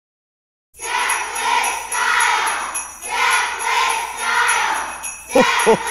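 Sleigh bells jingling in swells about once a second, starting just under a second in. Near the end a deep voice begins "ho, ho, ho".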